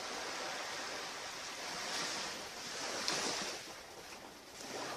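Ocean surf washing onto a beach, a steady rush that swells twice, then eases and builds again near the end.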